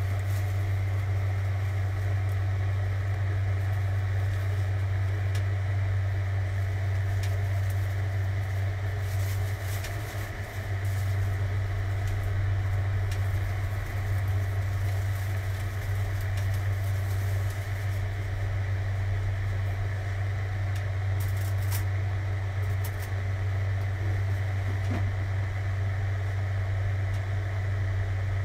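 Steady low mechanical drone of a kitchen fan running, with a few faint light clicks about a third of the way in and again later.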